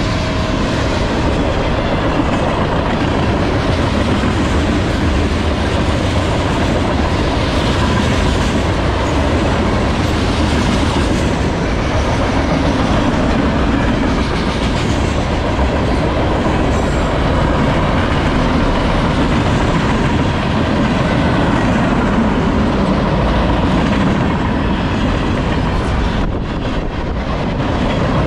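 Freight cars of a CSX manifest train, tank cars then covered hoppers, rolling past at speed on steel wheels and rails, loud and steady.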